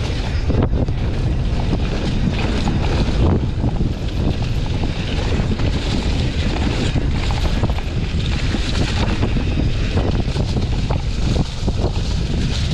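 Wind buffeting the microphone of a mountain bike descending a dirt forest trail, mixed with a steady stream of rattles and clicks from the bike and its tyres over the ground.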